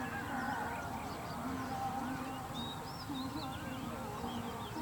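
Open-field ambience: many small birds chirping and twittering in quick, scattered calls over a steady low background noise, with faint low voice-like sounds wavering underneath.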